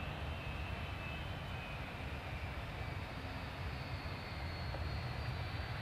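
Boeing 757 jet engines running at taxi power: a steady rumble and hiss with faint high-pitched whining tones.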